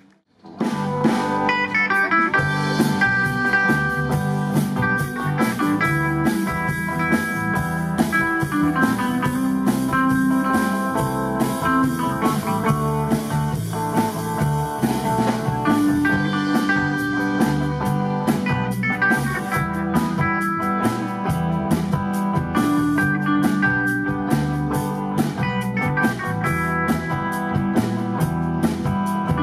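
Live blues-rock band playing: amplified electric guitars over a drum kit. It cuts in abruptly just under a second in, after a brief gap.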